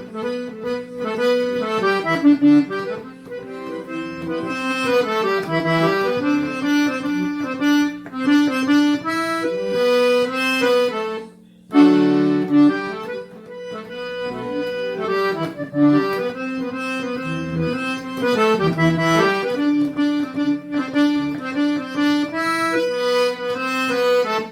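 Accordion playing a lively melodic instrumental introduction over a steady held bass note, with a short break about eleven and a half seconds in.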